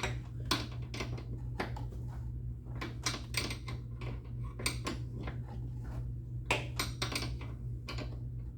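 Irregular metallic clinks and taps of hand tools and small hardware while a battery kill switch is being fitted, over a steady low hum.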